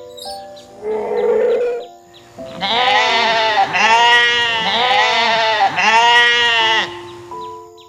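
An animal's long pitched call, wavering in pitch and rising and falling in about three swells, over soft background music, with a short rough burst a second or so before it.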